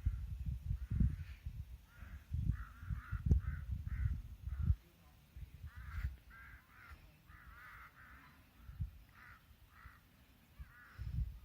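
Crows cawing over and over, short calls in quick runs. Uneven low rumbles sound under them for the first few seconds, then stop.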